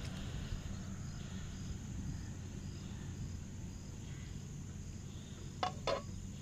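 Insects chirping in a regular rhythm over a steady low outdoor noise, with two short clicks close together near the end.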